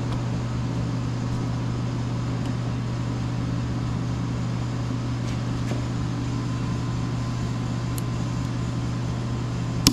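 A steel snap ring on a T5 transmission mainshaft snapping into its groove with one sharp metallic click near the end, the ring seating in place. A steady low hum runs underneath.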